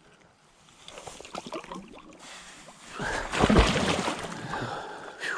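River water sloshing and splashing as a person wades through it. It starts faintly and swells into a loud churning about halfway through, with a deep rumble of water pushing against the body-worn microphone, then eases off.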